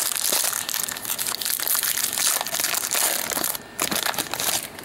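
Crinkling and crackling of a hockey-card pack's wrapper being torn open and crumpled by hand, with a short pause before a last bit of crinkling near the end.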